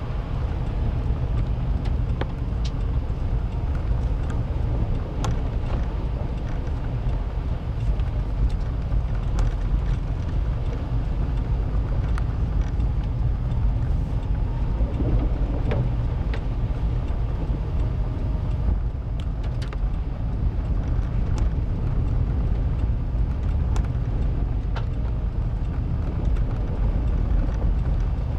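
Inside a car's cabin while driving over a rough, worn, partly gravel road: a steady low rumble of engine and tyres, with scattered light clicks and ticks throughout.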